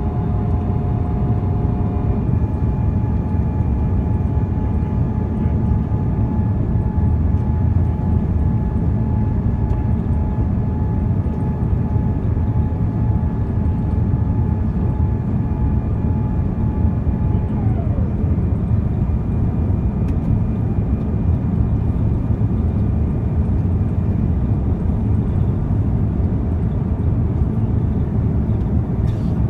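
Airliner cabin noise during descent: a steady low rumble of engines and airflow, with a faint whine that slides down in pitch about two-thirds of the way through.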